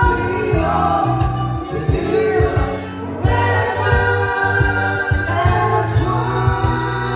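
Music with singing over a steady beat: a song with several voices.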